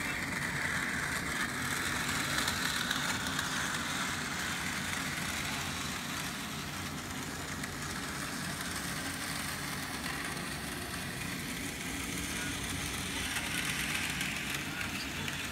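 N scale model train running along the layout track: a steady whir of the locomotive's small motor and its wheels on the rails. It swells louder in the first few seconds and again near the end, as the train comes closer.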